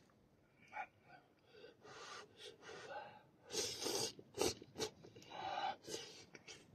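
A man slurping steaming-hot noodles from a bowl: a series of short noisy sucking slurps and breaths, the loudest about three and a half seconds in.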